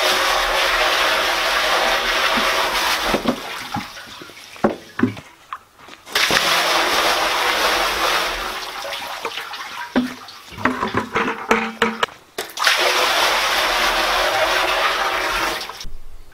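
Bucketfuls of water poured into a black plastic septic tank, splashing into the water already inside, three pours of a few seconds each with short knocks of the bucket between them. The tank is being filled with water to weigh it down so it won't float up out of the ground.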